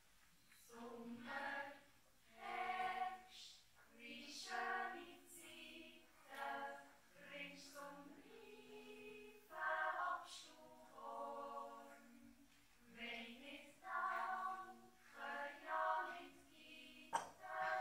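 Children's yodel choir, with a few adult women's voices, singing a cappella. The song starts about a second in and runs in phrases of a few seconds with short breaths between them.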